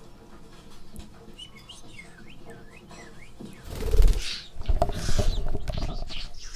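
A budgerigar chirps a run of short high notes that slide down and up. About three and a half seconds in, loud low rumbling and rustling takes over as the bird leaves the hand and the camera is jostled.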